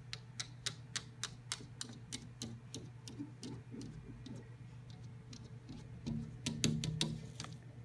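A cat's paws and claws tapping and scratching at window glass, a rapid run of sharp clicks at first, then scattered taps with another flurry near the end.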